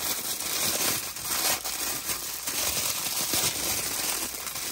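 Thin clear plastic bag crinkling and rustling as it is worked off a watch by hand, a continuous run of small crackles.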